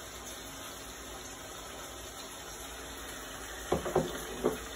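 Steady, even hiss of a pot of chicken curry simmering on the stove after water has been added, with a few short louder sounds near the end.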